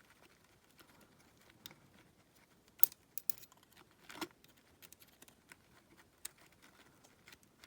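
Scattered light clicks and taps of small metal engine parts being handled and fitted by hand, with the sharpest clicks about three seconds in and another just after four seconds.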